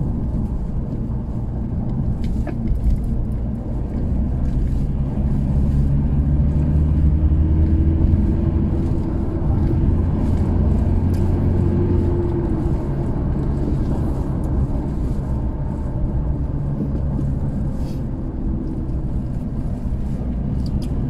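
Toyota Hilux pickup being driven, its engine and road noise heard from inside the cab as a steady low drone that grows a little louder for a few seconds midway.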